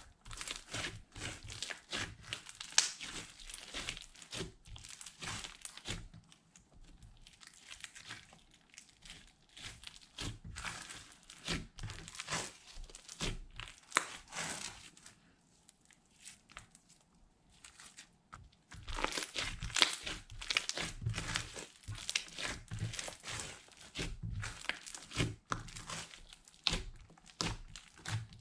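Hands squishing and stretching slime: a dense run of crackling, popping clicks, with a lull of about three seconds a little past the middle.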